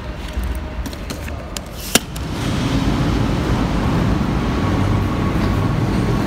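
A vehicle's low rumble, with a sharp click about two seconds in; then the rumble grows louder and a faint steady whine comes in.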